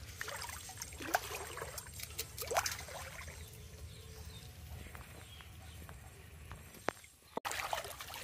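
Shallow floodwater splashing and sloshing around a person wading, with scattered light clicks and taps. After a sudden cut near the end, louder running, splashing water.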